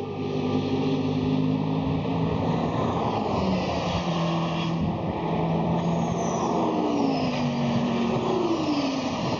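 GT race cars' engines running hard past the track, several at once. Their pitch holds steady and then falls away in glides as cars pass and shift down.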